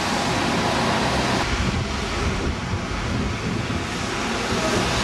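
Wind rushing on the microphone over the noise of street traffic below, with a change in the noise about a second and a half in.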